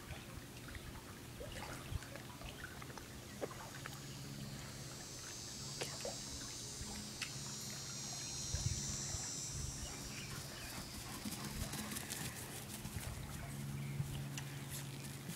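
Outdoor yard ambience: a high buzzing trill for about five seconds in the middle, over a low steady hum, with scattered clicks and taps that grow more frequent near the end.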